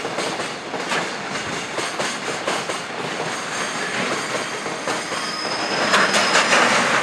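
Container freight wagons rolling slowly past, their wheels clacking irregularly over rail joints. Near the end a thin high-pitched wheel squeal joins in and the rolling noise grows louder.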